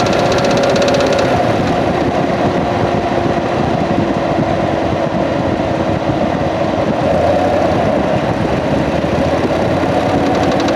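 2016 Corvette C7 Z51's 6.2-litre LT1 V8 running steadily, heard from inside the engine bay, with a rapid even ticking over the engine sound. The owner suspects the fuel pump or a fuel line for this mystery noise, having already replaced the belt tensioner.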